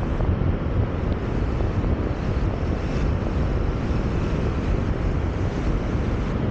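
Steady wind rumble on the microphone, mixed with road noise from a moving car.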